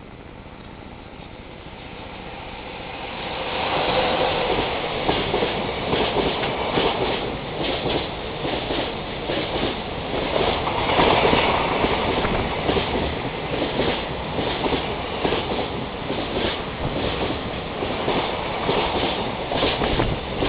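Freight train hauled by a JR EF66 electric locomotive approaching and passing. The train grows louder over the first four seconds, then runs by steadily with its wheels clacking over the rail joints in a quick, regular rhythm.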